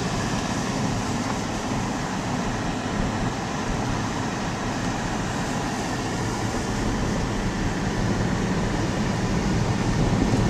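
Steady road noise heard inside a car's cabin while driving on a snow-covered road: tyre and engine rumble with a constant hiss, growing a little louder near the end.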